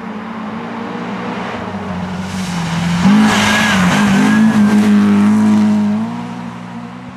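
Mercedes-Benz 190 (W201) rally car approaching and passing close at speed on a snowy stage, the engine loud and shifting pitch a couple of times, with a hiss of tyres and thrown snow. It is loudest in the middle and fades as the car goes away.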